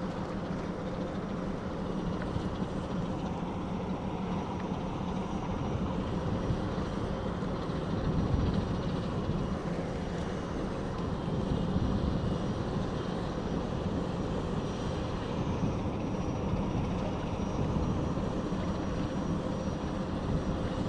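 A steady low engine drone with a faint steady hum, rising and falling slightly in level.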